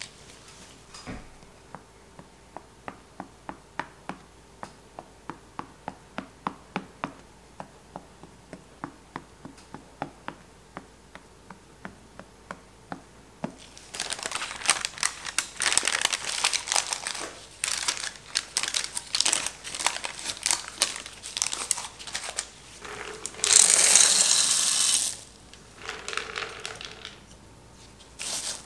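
A fork pricking the raw tart-dough base in a tart tin, a steady run of short taps about two to three a second. Then parchment paper crinkling as it is crumpled and pressed into the shell, and near the end a loud rush of dried baking beans poured onto the paper and shifted by hand.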